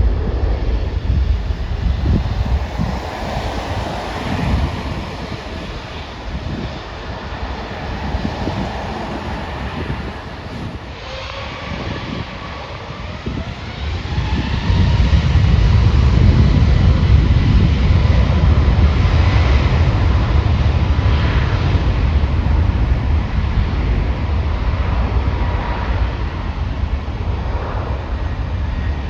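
Jet airliner engines: a heavy low rumble with a thin engine whine that glides and then holds steady. The rumble swells and grows louder about halfway through.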